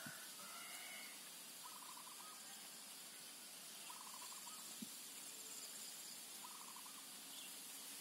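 Faint outdoor ambience with an animal's short, rapid trilled call, repeated about every two seconds. A faint high insect-like buzz is heard early on.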